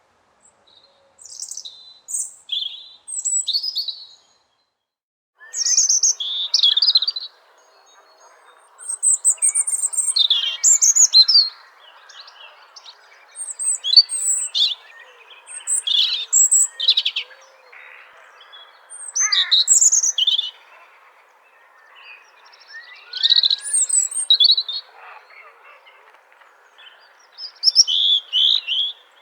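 Robin singing: short, high, warbling phrases repeated in clusters with brief pauses between them. A faint steady background hiss comes in about five seconds in.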